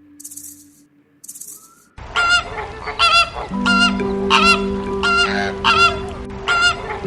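A bird giving loud, honking calls again and again, about one every half second or so, starting about two seconds in. Sustained music tones play underneath.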